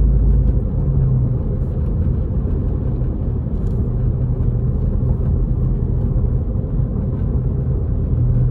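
Steady low rumble of engine and tyre noise heard from inside a moving vehicle's cabin while driving.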